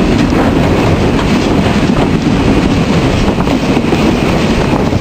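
Steam locomotive V-820 running along the line, heard from its cab: a loud, steady mix of locomotive running noise and wheels on the rails.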